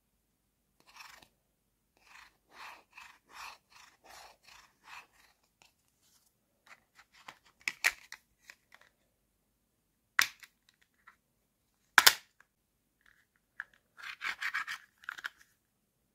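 Hard plastic toy food pieces handled by hand: a run of soft rubbing strokes, then three sharp plastic clicks a couple of seconds apart as the pieces of a toy sandwich are put together, and a short flurry of rubbing and clacking near the end.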